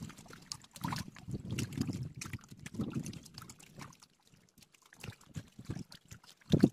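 Water sloshing and trickling in irregular small splashes at the lake's edge, with light clicks of handling.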